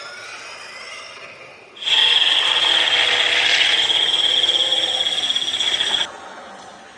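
Reconstructed Tyrannosaurus rex call sound effect: a loud, high, steady-pitched call starting about two seconds in, held for about four seconds and cutting off suddenly, after a quieter sound at the start.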